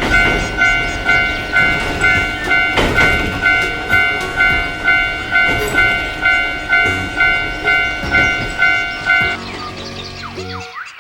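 Japanese railroad crossing bell ringing in an even "kan-kan" about twice a second while a train rumbles past. The bell stops about nine seconds in, leaving a quieter train sound.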